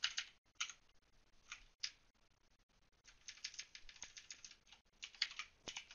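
Faint computer keyboard typing: a few separate keystrokes, then a quick run of keystrokes about three seconds in and a few more near the end.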